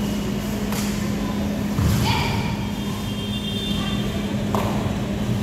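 Sports-hall background during a kabaddi raid: a steady low hum under distant players' and spectators' voices, with a few sharp thuds or claps.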